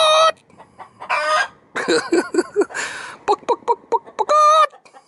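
A chicken clucking in quick short notes, broken by several loud, longer squawks.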